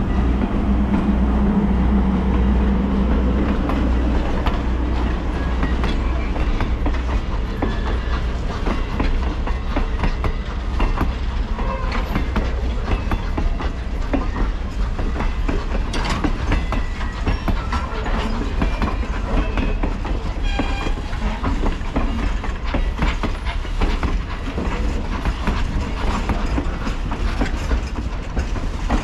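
Passenger train coaches rolling past, wheels clicking and clanking over the rail joints in an irregular clickety-clack. A low hum fades away in the first few seconds.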